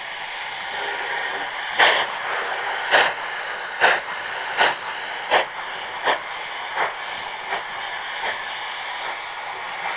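Narrow-gauge steam locomotive starting a train: a run of about ten exhaust chuffs begins about two seconds in, the beats coming quicker and growing fainter as it gets under way, over a steady hiss.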